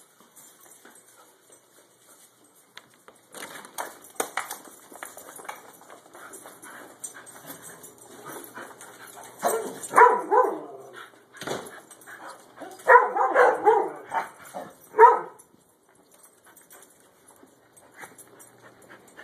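Dogs at play, barking and vocalising in short loud bursts amid scuffling. The loudest bursts come about halfway through and again near three quarters of the way in.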